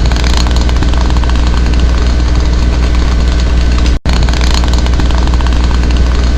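A loud, steady low rumble with a constant hum, like a running engine, broken by a brief gap about four seconds in.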